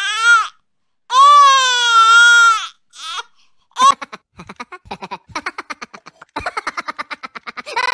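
Infant crying: a few short wails, then one long wail about a second in and a couple of brief sobs. From about four seconds in, a quick run of short pulsing sounds follows, getting faster near the end.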